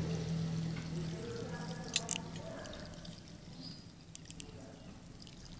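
Seasoned tamarind and palm-sugar broth poured from a metal pot onto shredded mango in a plastic tub: a steady splashing pour that grows quieter as it goes. There are a couple of sharp clicks about two seconds in.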